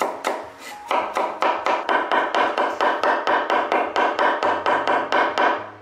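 Chinese cleaver mincing ginger and garlic on a wooden cutting board: rapid, even chops about five a second, with a brief pause near the start. The chopping stops just before the end.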